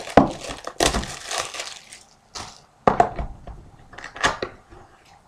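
Plastic shrink-wrap on a sealed Rookie Anthology hockey card box crinkling and tearing as it is unwrapped. It comes in irregular crackles with a few sharper snaps as the cardboard box is handled.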